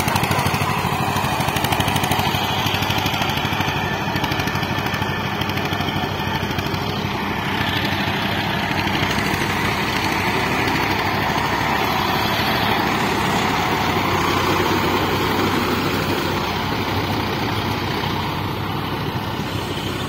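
Tractor diesel engine running steadily under load while ploughing a flooded paddy field, a fast even chugging that holds at one speed throughout.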